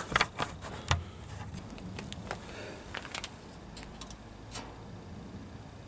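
A few sharp knocks in the first second, then a handful of faint scattered clicks over a quiet background. The Isuzu diesel is not running; its glow plugs are being left to warm before cranking.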